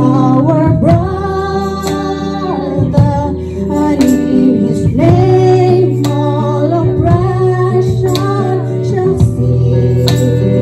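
A group of singers, mostly women's voices, singing a Christmas carol in long held notes over guitar accompaniment.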